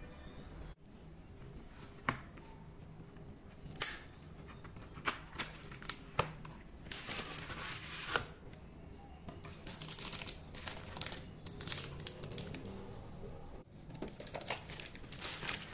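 Chocolate bar packaging being opened, with foil and paper crinkling and tearing in irregular bursts and scattered light clicks and taps.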